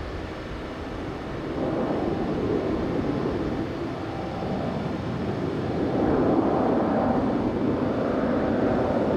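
Jet engines of a Boeing 787 airliner at taxi power, a steady rushing hum that grows louder about a second and a half in and again around six seconds in as the aircraft draws closer.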